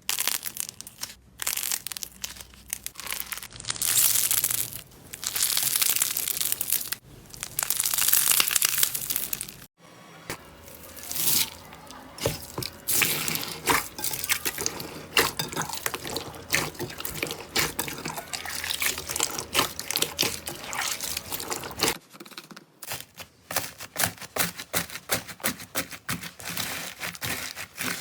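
Slime being squished and stretched by hand: a dense run of small crackling pops and squishes. The sound changes abruptly twice, about ten seconds in and again near the end, as one clip gives way to the next.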